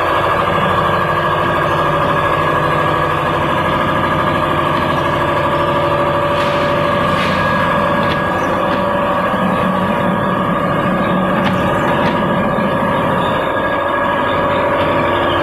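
Paper-straw production machinery running: a steady mechanical hum with several held tones and a few faint clicks.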